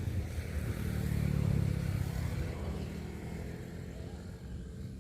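A motor engine running with a steady low drone. It grows loudest about a second and a half in, then fades away.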